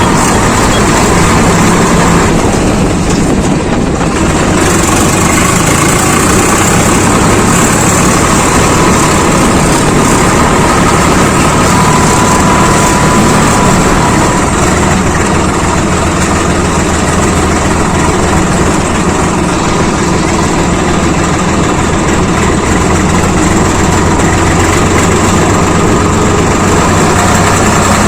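Swaraj 855 FE tractor's diesel engine running steadily and loudly.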